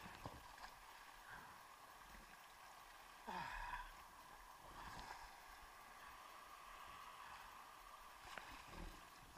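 Faint water sloshing and lapping close to the lens, with one brief louder swish about three seconds in.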